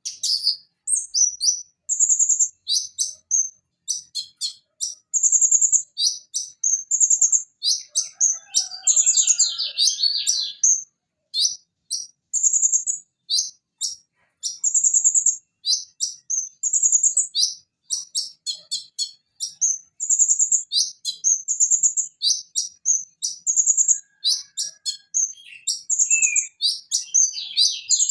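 Kolibri ninja sunbird (konin, Leptocoma sperata) singing: rapid strings of sharp, high chirps and short trills, one phrase after another with only brief pauses.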